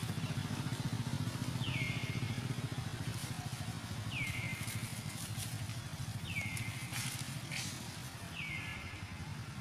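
A young macaque squealing four times, about two seconds apart; each squeal is a high note that drops in pitch and then holds briefly. Under it runs a steady low engine hum.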